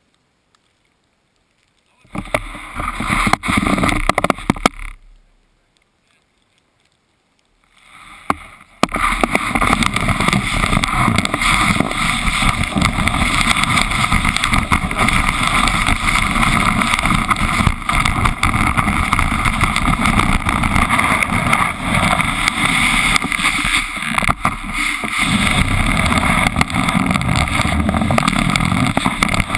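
Snowboard sliding over snow at speed, with wind buffeting the camera microphone: a loud, rough, continuous rushing and scraping. It starts about two seconds in, stops for a few seconds, and comes back about nine seconds in.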